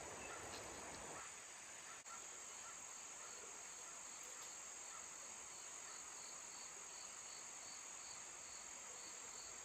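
Faint, steady outdoor insect chorus of crickets trilling high, with a softer chirp repeating about twice a second.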